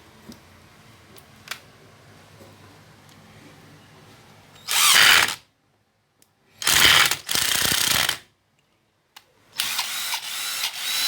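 Cordless drill test-run in several short trigger pulls, its motor spinning up and winding down each time over the second half. The first few seconds are quiet apart from a few faint clicks.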